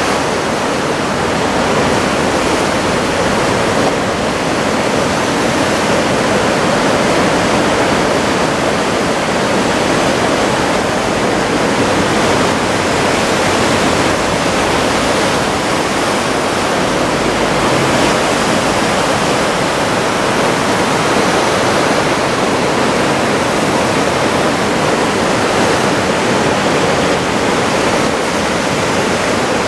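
Steady, loud roar of heavy surf from a big typhoon swell breaking along the shore.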